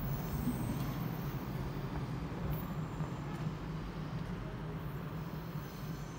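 REX regional train moving slowly along the platform: a steady low rumble that fades a little toward the end.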